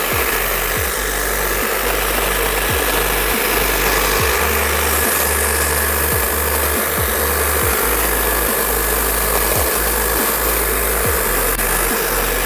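Cordless hedge trimmer running steadily as it cuts a privet hedge, with background music with a low beat underneath.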